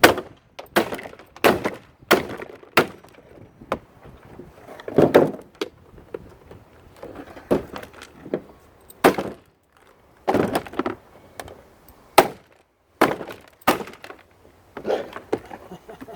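A claw hammer knocking and prying at the plastic housing of a shop vac, with more than a dozen irregularly spaced sharp knocks and cracks of plastic, some followed by short scraping or crunching.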